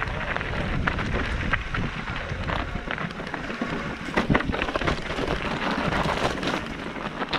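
Mountain bike rolling over a rocky trail of loose stones: tyres crunching on gravel, with frequent sharp clattering knocks as the bike rattles over the rocks.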